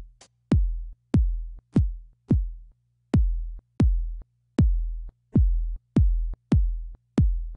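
Synthesized kick drum from Logic's ES2 synth: a sine oscillator whose pitch drops quickly into a low thump, played about a dozen times at uneven intervals. The hits lengthen after the first second as the volume envelope's decay is raised.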